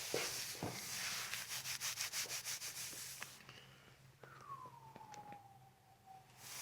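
Rustling and rubbing of someone shifting on a chiropractic treatment table, in quick repeated strokes for about three seconds. After that a faint tone slides down in pitch over about two seconds.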